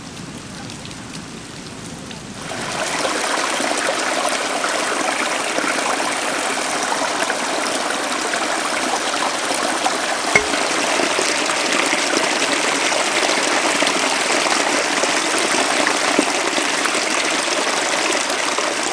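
Small mountain stream running over mossy rocks: a steady rush of water that comes in about two and a half seconds in, with one short click about ten seconds in.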